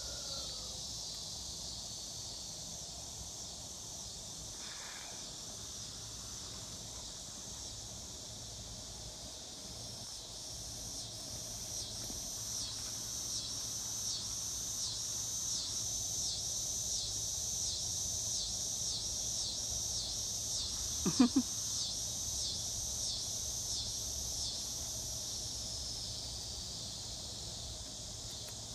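Background insects shrilling in a steady high band, the trill pulsing about once a second through the middle. About three-quarters through comes a short, low buzz that is the loudest moment.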